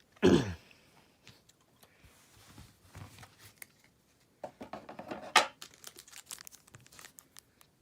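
Crinkling and rustling of plastic and foil card packaging as trading cards are handled, with a cluster of crackles about halfway through. Just after the start there is a short, loud sound that falls in pitch.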